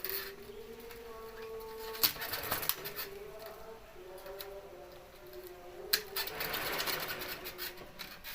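Slow background music of long held notes that step to a new pitch every second or two, crossed by two sharp clicks, each followed by a second or so of hissy scraping noise.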